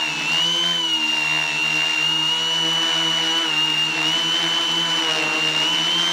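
Quadcopter's electric motors and propellers whining steadily in flight, heard close up from the onboard camera. The high whine wavers slightly up and down as the throttle shifts.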